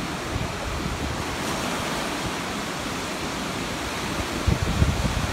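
Waves breaking and washing up a sandy beach: a steady rush of surf. From about four and a half seconds in, gusts of wind buffet the microphone with low rumbling thumps.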